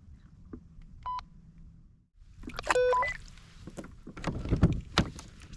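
Short electronic beeps, one about a second in and a louder multi-tone beep near three seconds, then handling clatter and two sharp knocks on the plastic kayak hull.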